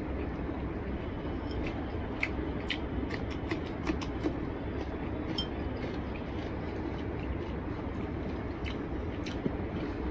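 Hand-eating sounds: fingers mixing rice and spinach curry on a plate, with chewing, heard as scattered small clicks over a steady low background hum.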